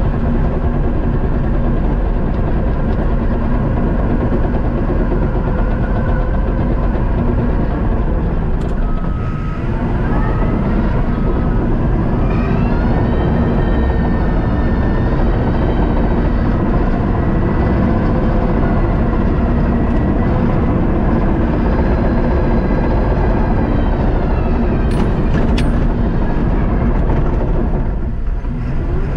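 Caterpillar crawler dozer's diesel engine running steadily under load while the machine pushes dirt and snow with its blade, heard from inside the cab. The engine note rises about ten seconds in, holds, and eases back down near the end.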